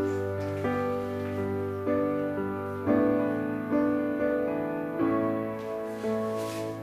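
Background music: soft piano with a sustained low bass, new notes every second or so.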